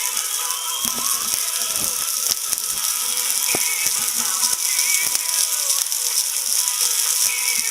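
Horumon (offal) sizzling and crackling on a grill: a steady high hiss with many small pops.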